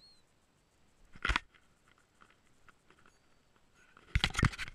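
Handling noise on an action camera: a single knock about a second in, then a quick run of several loud, irregular knocks and rubs near the end as fingers touch the camera.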